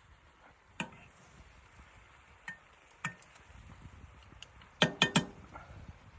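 Hard objects clinking together in sharp, separate strikes. There are single clinks about a second in and around two and a half and three seconds, then three in quick succession near the end, which are the loudest.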